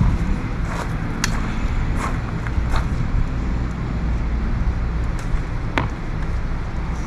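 Wind rumbling on the microphone, with a few light clicks and rustles of handling scattered through.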